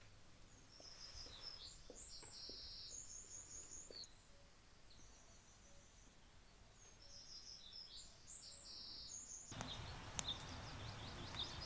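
A small songbird singing high, quick twittering phrases with trills, the same phrase twice a few seconds apart. About three-quarters of the way in, a steady outdoor background hiss comes up and another high trilling song runs on under it.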